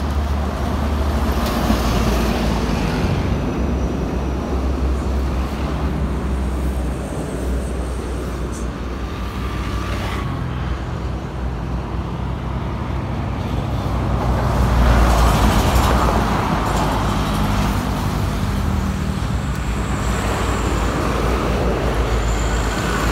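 Road traffic on a busy highway: trucks, buses and motorcycles passing in a steady rumble, with a louder pass about two-thirds of the way through.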